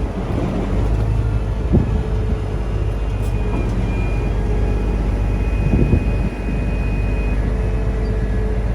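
Heavy diesel farm machinery running steadily, with a couple of clunks and a thin high whine for a few seconds in the middle.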